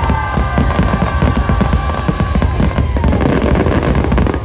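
Fireworks barrage: a dense run of bangs and crackles with a heavy low rumble, over show music holding sustained notes.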